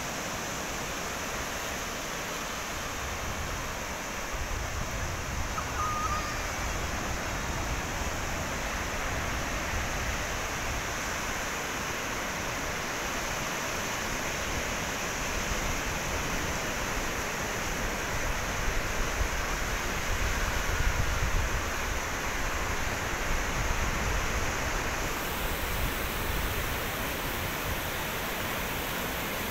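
Ocean surf breaking and washing up a sandy beach: a steady rush of noise that swells louder for a few seconds past the middle.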